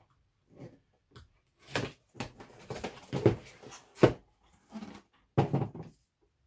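Cardboard scope box being opened by hand: the seals cut with a knife, then the outer sleeve pulled off the inner box, with irregular rustling and scraping of card and a sharp knock about four seconds in.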